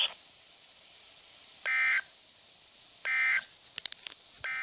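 Three short, buzzy electronic data bursts about 1.4 s apart: the Emergency Alert System end-of-message (NNNN) codes that close a broadcast warning. A few sharp clicks come between the second and third bursts.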